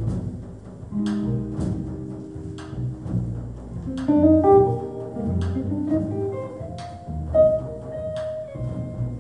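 Live jazz ensemble with a string section playing: upright bass notes and bowed strings under sharp drum and cymbal accents, with held melodic lines coming in about four seconds in.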